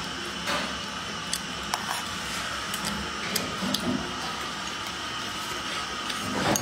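A person eating with chopsticks from a bowl: chewing and mouth sounds with a few short, sharp clicks, over a steady background hiss.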